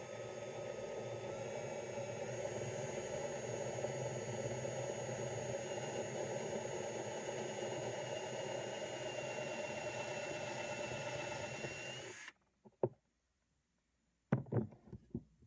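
Electric drill with a 1/4 inch bit running steadily as it bores a hole into a golf ball, with a constant motor whine; it stops abruptly about twelve seconds in, followed by a few short knocks.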